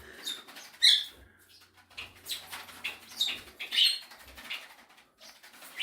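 Cockatiels chirping: several short, high chirps scattered through, the loudest about a second in.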